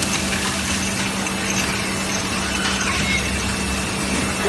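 Robotic assembly-line machinery running steadily: an even mechanical whir with a constant low hum and a faint thin high whine.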